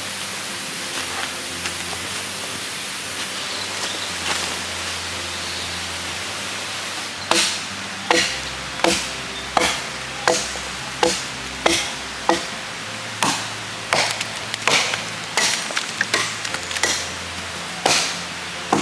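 Long-handled hoe chopping into the forest floor: a steady series of strikes, a little more than one a second, starting about seven seconds in, over a steady hiss.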